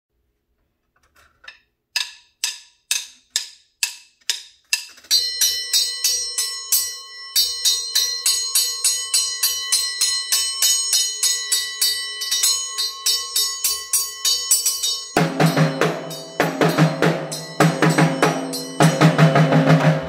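Ludwig drum kit played as a song intro: evenly spaced single strikes, then a quick repeated pattern over a steady metallic ring, and about fifteen seconds in the full kit comes in with bass drum and snare.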